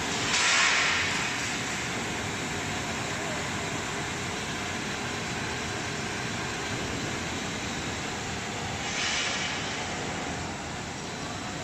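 Commercial vegetable washing machine running: a steady rushing noise of its air-bubble washing tank, with two brief louder surges of hiss, one about half a second in and one about nine seconds in.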